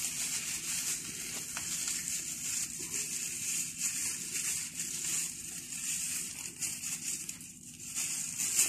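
Thin plastic freezer bag holding batter crinkling and rustling unevenly as it is twisted and tied shut by hand.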